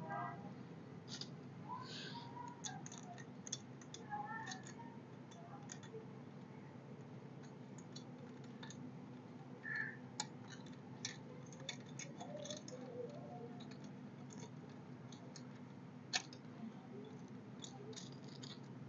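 Faint, scattered clicks and light metallic taps of nuts, bolts and a mud-guard bracket being handled and fitted by hand, over a low steady hum.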